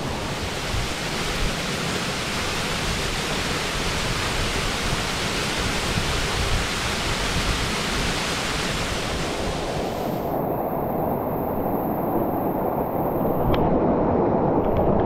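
Mountain stream water rushing over rocks in a steady noise. About ten seconds in it abruptly turns duller, the hiss above the middle range gone.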